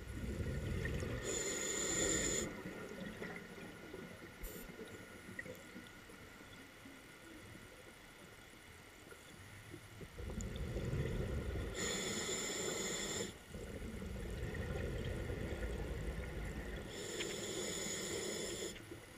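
Diver breathing underwater through a vintage Phoenix double-hose scuba regulator: three long breaths of bubbling rumble and hiss, with a quiet gap of several seconds after the first.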